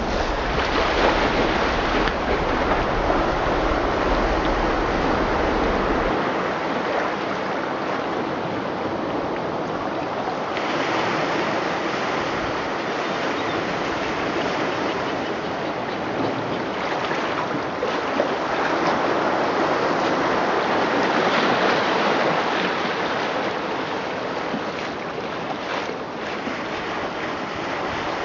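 Recorded ocean surf: waves washing in and drawing back in slow swells, the sound rising and easing several times.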